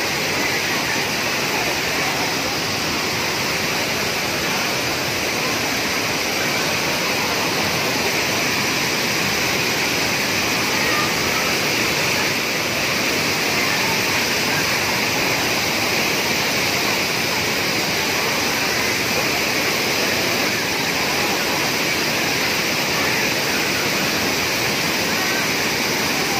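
Waterfall pouring over rock ledges into a shallow pool, a steady, unbroken rush of falling water.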